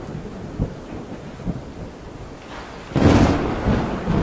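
Thunderstorm sound effect: rolling thunder with low rumbles and a loud thunderclap about three seconds in, over a hiss of rain.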